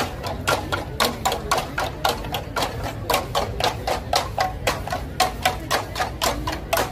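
Bamboo percussion tubes struck with sticks in a quick, steady rhythm of sharp, lightly ringing strikes, about four a second, accompanying an Igorot dance.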